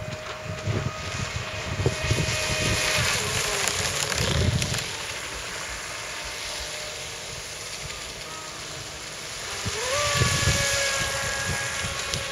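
ProBoat Shockwave radio-controlled speedboat's electric motor running at speed, a steady high whine with the hiss of its spray. It fades for a few seconds, then about ten seconds in the whine climbs in pitch and grows louder as the boat speeds up again. Wind buffets the microphone throughout.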